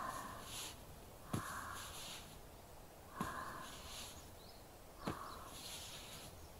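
Hands performing an ASMR massage close to a binaural microphone: four slow rubbing strokes about two seconds apart, each opening with a soft knock and trailing off in a brief swish.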